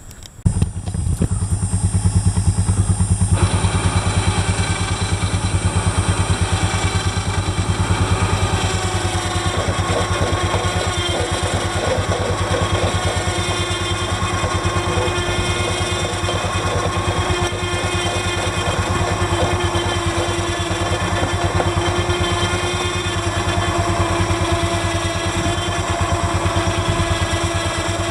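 An engine running steadily at an even speed, a low pulsing rumble with a steady hum above it.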